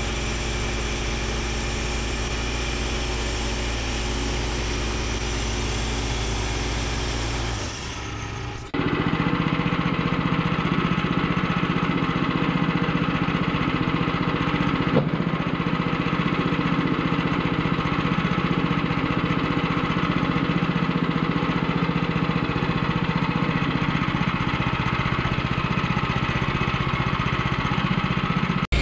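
Woodland Mills HM122 portable bandsaw mill running steadily as the mill head is pushed through a log, its gas engine driving the band blade. About nine seconds in the sound changes abruptly and gets louder.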